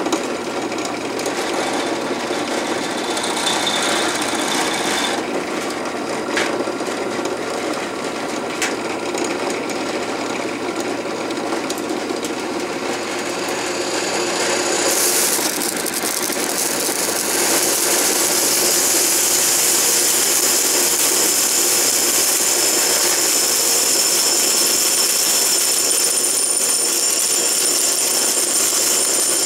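Drill press running steadily, its bit grinding into a ferrocerium rod. About halfway through, a high scraping hiss with whining tones sets in and grows louder as the bit bites into the rod and throws sparks.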